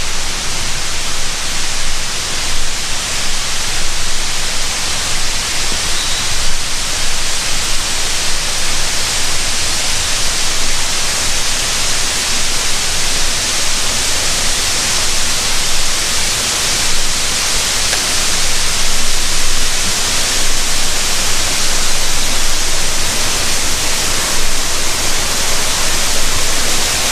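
Loud, steady rush of a waterfall plunging into a gorge.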